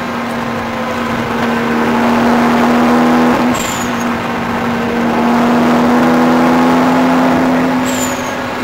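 Toyota Supra's straight-six engine heard from inside the cabin, pulling hard at steady revs on a track lap. The note breaks briefly about three and a half seconds in and eases off near the end, and each time a short, high, falling chirp comes with it.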